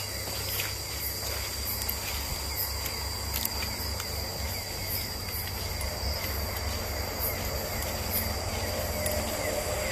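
Chorus of night insects in tropical forest: steady high-pitched trilling with short chirps repeating over it, above a steady low rumble.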